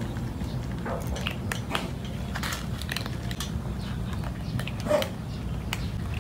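Cats chewing hard food, a scatter of crisp cracks and crunches over a steady low rumble. A short pitched cry rises above the chewing about five seconds in.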